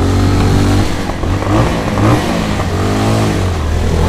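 Motorcycle engine and exhaust revving in several short rising-and-falling blips over a steady low idle, the biggest blip about three seconds in.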